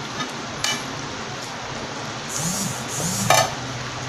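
Steel plate lid being lifted off a kadai and set down: a light clink about half a second in, a wavering metallic ring a little past two seconds, then a sharp metal clank just after three seconds, over a steady hiss.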